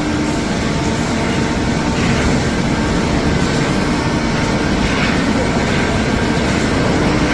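Heavy steel-plate cut-to-length line for hot-rolled coil running: a loud, steady machine noise with a few constant hum tones and no distinct shear strikes.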